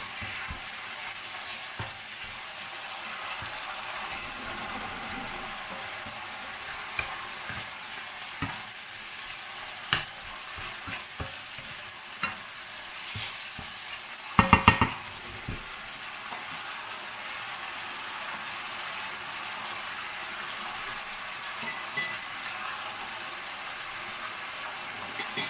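Diced chicken and shallots sizzling in hot oil in a nonstick pan while a spatula stirs and scrapes them, with scattered light clicks. The chicken has released its juices and they are cooking off. There is a brief louder noise about halfway through.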